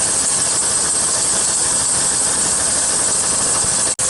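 1999 Chevrolet Suburban's engine running at idle with the A/C on high, under a steady hiss, while R-134a refrigerant is charged into the low-side port. The A/C compressor is staying engaged now rather than cycling on and off. The sound cuts out for an instant near the end.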